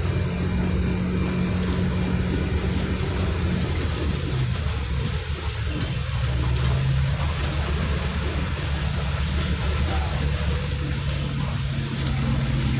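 Bus engine running with a steady low drone, heard from inside the cab, its pitch shifting a few times as the bus moves through traffic. Under it is an even wash of tyres on a flooded, wet road.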